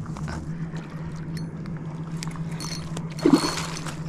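A steady low hum with scattered light clicks, a short burst of high tones near the end, and one brief louder sound a little past three seconds in.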